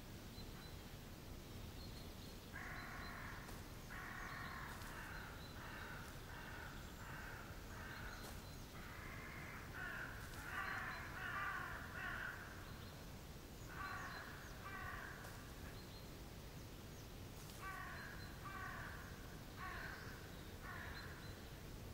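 Crows cawing: several bouts of short, harsh, repeated caws, over a steady low background rumble.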